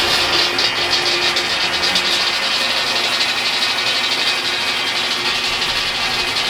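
Sawmill saw running steadily just after being started, its circular saw blades spinning.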